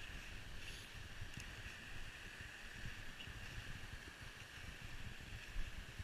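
Faint, steady rush of a flowing creek, with wind buffeting the microphone in low rumbles.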